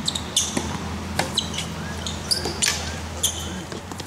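Tennis rally on a hard court: sharp racket strikes and ball bounces, with short high-pitched squeaks of tennis shoes on the court surface, over a steady low hum.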